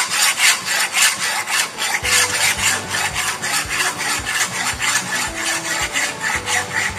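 A rough hand file scraping back and forth across a metal plate clamped in a vise, in steady repeated strokes about three a second. The plate's surface is being filed clean of rust to prepare it for butt welding.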